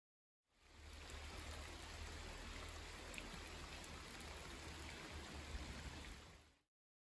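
Steady rain falling, an even hiss with a low rumble beneath it, fading in about half a second in and fading out near the end.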